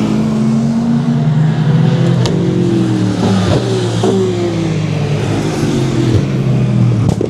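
Endurance race cars' engines at full volume, several engines sounding together, with their notes falling in pitch several times.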